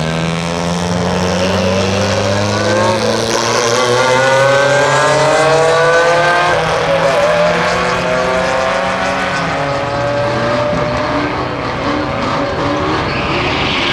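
Two drag-racing cars launching off the line side by side and accelerating hard down the strip, engine pitch climbing. Loudest about five seconds in, then fading as they pull away down the track.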